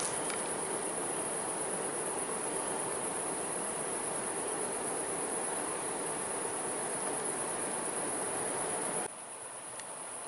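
Steady chirring of night crickets over an even background hiss; both drop sharply in level about nine seconds in.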